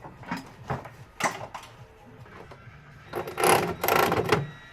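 Cordless electric ratchet running for about a second near the end, driving in a gearbox bolt, after a few light clicks and knocks of tools.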